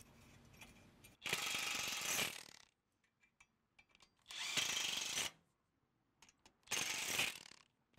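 DeWalt cordless impact tool driving the bolts of a chain-roll plate into a corn-head stalk roll, in three short runs of about a second each with pauses between.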